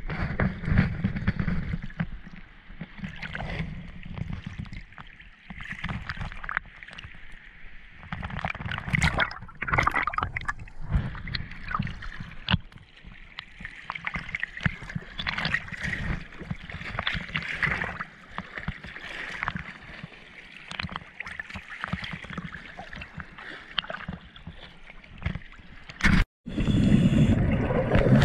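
Muffled underwater gurgling and bubbling of water picked up by a camera in a waterproof housing as it moves along the wreck. The sound cuts out for a moment near the end and comes back louder.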